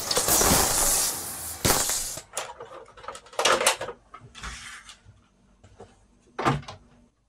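A loud burst of noise lasting about a second and a half ends in a sharp knock. Then come scattered clicks and clatter of plastic game cartridges being handled at a cartridge game console, over a faint steady hum.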